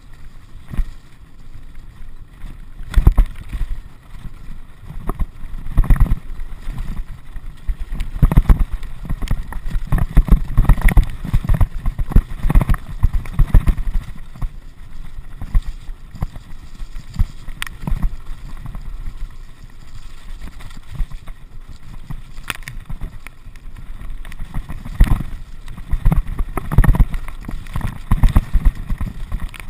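Mountain bike riding fast down a rocky, rutted dirt track: tyres rumbling over stones and dirt with repeated knocks and rattles as the bike hits rocks, over a rush of wind on the microphone. The clattering is heaviest for a stretch a few seconds in and again near the end, where the tyres throw up wet mud.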